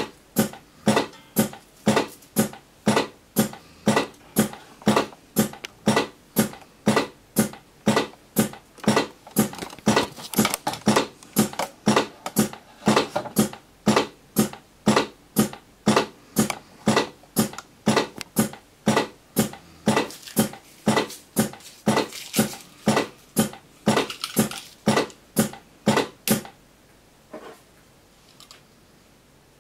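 Modified OCB Mikromatik 2 cigarette-filling machine cycling as it stuffs tobacco into cigarette tubes, a short mechanical stroke about twice a second in an even rhythm. It stops about 26 seconds in.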